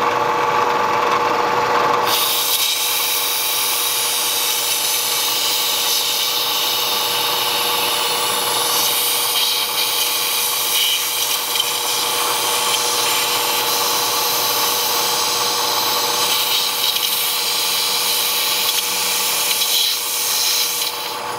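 Bridgeport milling machine running, its end mill cutting a fuller groove along a steel knife blade with a steady whine. A high hiss joins about two seconds in and carries on with the cut.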